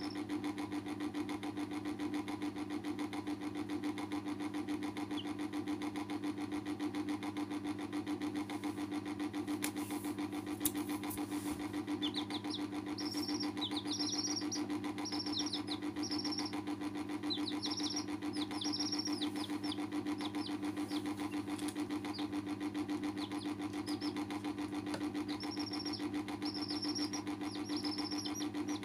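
Chicks peeping in short, high cheeps over a steady machine hum. The peeping starts about twelve seconds in, and a single sharp click comes a little before it.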